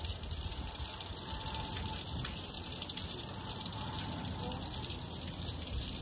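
Water still running at a largely frozen waterfall: a steady, even rush.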